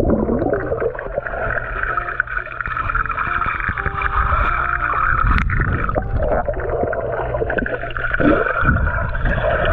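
Muffled underwater sound picked up by a camera microphone held under water in a swimming pool: a steady rumble and gurgling of water, with a few short, faint tones.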